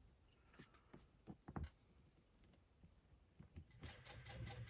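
Faint, scattered clicks of a computer mouse against near silence.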